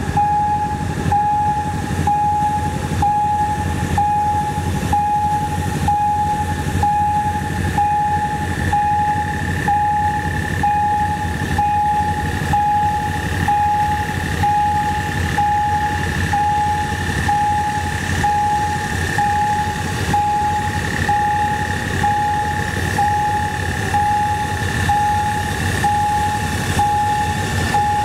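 Railway level-crossing warning signal sounding a repeating electronic tone about once a second, over the low rumble of a GEK-class diesel locomotive and its train rolling across the crossing.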